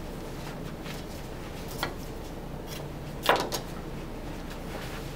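Butcher's twine being pulled and cinched around a trimmed beef chuck roast by gloved hands: quiet handling noise, with a short sharp rasp about three seconds in and a couple of smaller ones around it.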